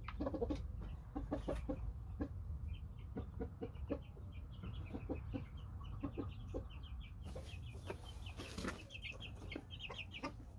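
Chickens clucking in short, irregular notes, with quick high chirps joining in from about three seconds in. A brief rustling noise comes about halfway through.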